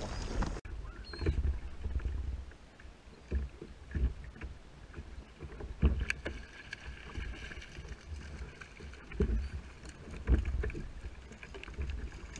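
Water slapping against a plastic fishing kayak's hull, with scattered brief knocks and thumps.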